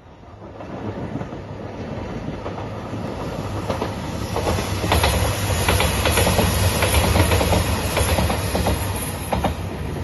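JR Shikoku 2700 series diesel limited express train passing, its engines humming and its wheels clicking over the rail joints. The sound builds from the start and is loudest about halfway through.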